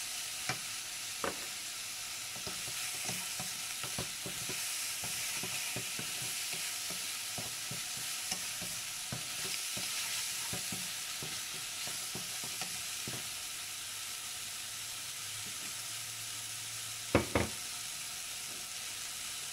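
Chicken pieces sizzling in a nonstick wok while being stirred with a wooden spatula, with a steady frying hiss and frequent light scrapes and taps of the spatula. Near the end the spatula gives two sharp knocks against the pan.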